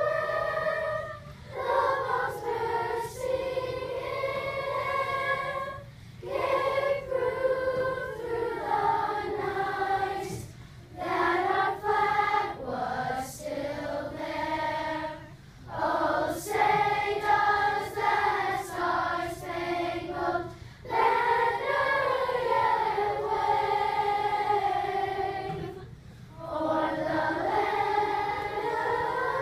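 A choir of young schoolchildren singing a song together, in phrases broken by short pauses about every five seconds.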